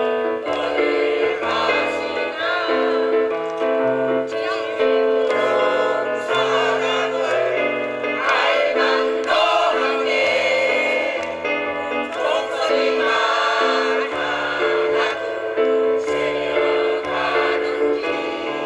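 Mixed choir of older men and women singing together in held notes over a low accompaniment.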